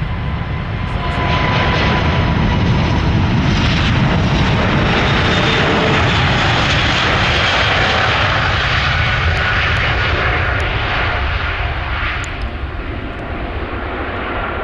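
Airbus A380's four jet engines at takeoff thrust through the takeoff roll and liftoff: loud, steady jet noise with a deep rumble. It builds about a second in and eases off near the end as the aircraft climbs away.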